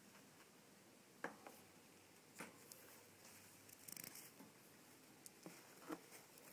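Faint, sparse crinkles and clicks of paper-towel bedding being moved in a hamster cage, with a quick run of ticks about four seconds in.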